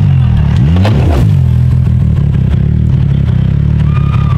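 Race UTV's engine revving up and down as the machine rolls over, with a clatter and scraping of the cage and body against the ground about a second in.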